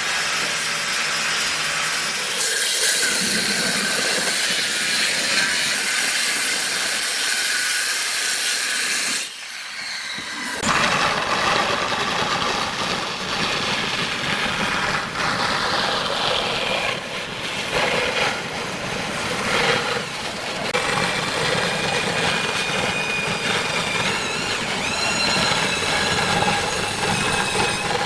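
Woodworking power tools running and cutting wood, a loud, harsh noise that changes character after a brief drop in level about nine seconds in; in the second half a motor's steady whine comes through, rising slightly near the end.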